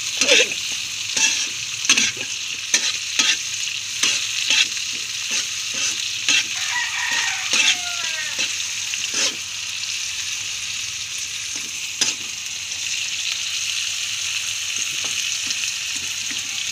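Crickets frying in hot oil, sizzling steadily as they toast crisp, while a metal slotted spatula stirs them and knocks against the pan about twice a second. The stirring stops after about nine seconds, leaving the sizzle with one more knock a few seconds later.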